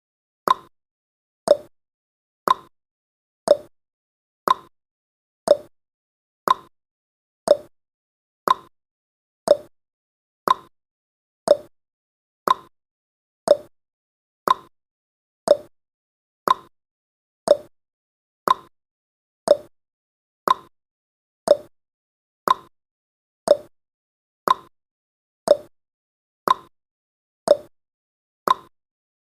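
Countdown timer's ticking sound effect: one short, sharp tick every second, alternating between a higher and a lower tick like a clock's tick-tock.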